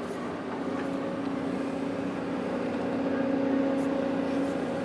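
Heavy diesel engine running steadily, a constant hum that grows a little louder through the middle.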